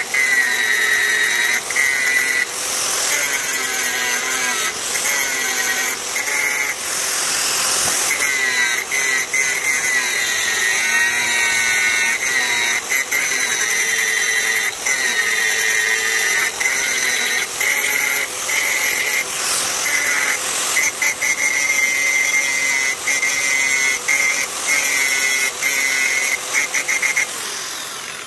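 Angle grinder running with its disc grinding down a TIG weld bead on aluminium, with a steady high whine and many brief dips in level as the disc bites and lifts. It winds down near the end.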